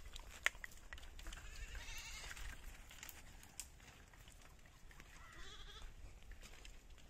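Goats bleating faintly: one call about two seconds in and a wavering one about five and a half seconds in. A few sharp clicks stand out, the loudest about half a second in.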